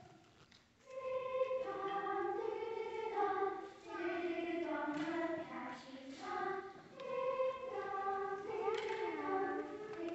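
Group of children singing together in unison, starting about a second in, holding notes and moving from one to the next every half second or so.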